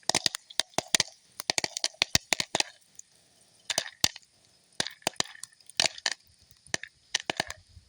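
Campfire crackling, irregular sharp snaps and pops from wood just lit with shredded fatwood, over a faint steady hiss.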